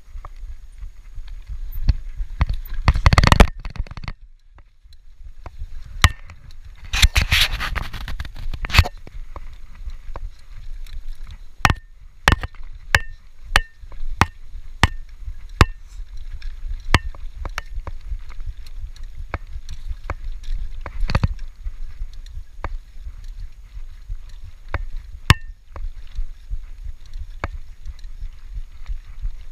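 Norco Shore 2 full-suspension downhill mountain bike ridden down a rough forest trail: a constant low rumble of tyres and wind, broken by frequent sharp knocks and rattles from the bike over bumps. There are two longer bursts of harsh noise, about three seconds in and again around seven to nine seconds.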